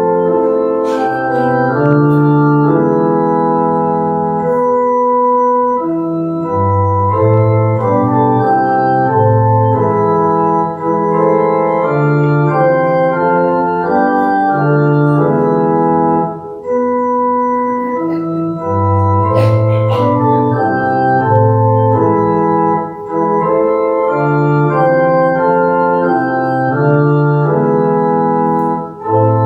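Organ playing a slow prelude: sustained chords that change every second or so over a moving bass line.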